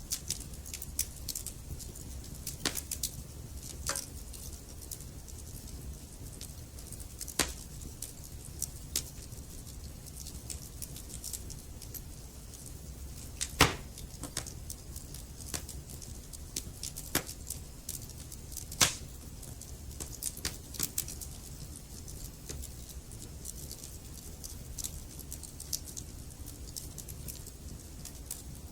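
Wood fire burning in a fireplace: a steady low rumble of the flames with frequent small crackles and scattered louder pops of burning logs, the sharpest snaps about halfway through and again a few seconds later.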